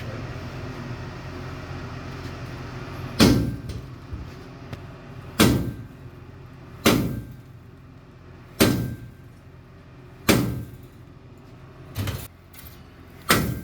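Slow, heavy hammer blows on steel at a blacksmith's anvil, seven strikes about one and a half to two seconds apart starting about three seconds in, each with a short metallic ring.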